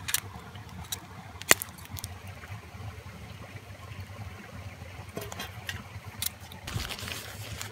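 Metal cookware being set down on a campfire's coals and wood: a clank right at the start, a sharp knock about a second and a half in, and a few lighter clicks later. A rustling hiss comes in near the end, over a steady low rush of flowing water.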